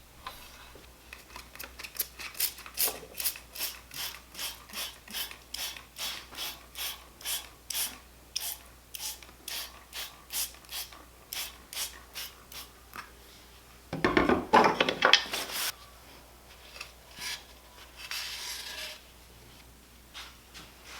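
A hand tool worked in quick, even strokes, a bit over two strokes a second, scraping or ratcheting, then a louder, rougher burst of scraping about two-thirds of the way through and a fainter one near the end.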